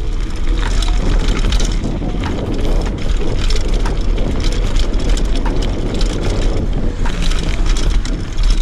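Mountain bike descending a dirt and stony trail at speed: knobby tyres crunching over dirt and loose rock, with frequent rattles and clicks from the bike over bumps. Wind buffets the microphone as a heavy low rumble.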